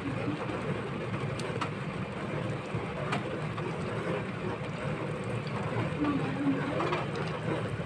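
Chicken stock bubbling in a steel pot as it is stirred with a metal spoon, a steady low rumble with a few light clicks of the spoon against the pot.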